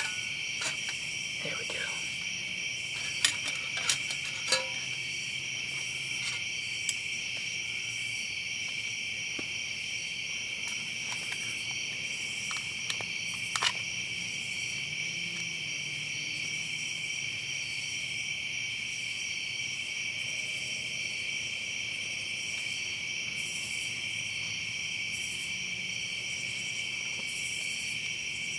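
Steady, unbroken high-pitched chorus of night insects. A few light clicks and knocks stand out briefly, around three to five seconds in and again near the middle.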